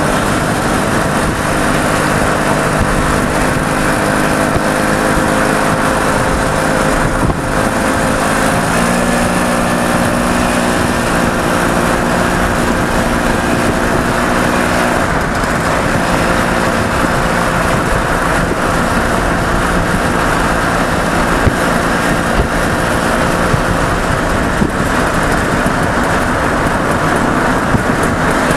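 Steady engine and road noise heard from inside a car following a small Pannonia motorcycle. The engine note changes pitch about seven seconds in and again about fifteen seconds in.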